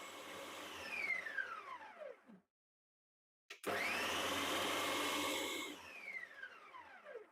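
Electric food mixer motor pulsed twice to rub butter into flour: it runs, cuts off and winds down with a falling whine, goes quiet for about a second, restarts with a rising whine, runs again and winds down near the end. Quiet.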